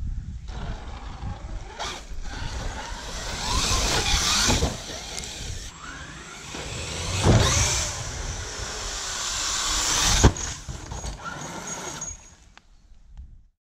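Radio-controlled monster-style truck driving over dirt jumps, its motor whining up and down with throttle, the tyres scrabbling in the dirt, and several sharp landing impacts. The loudest impact, about ten seconds in, is a crash that breaks the truck's shock shafts; the sound cuts off shortly before the end.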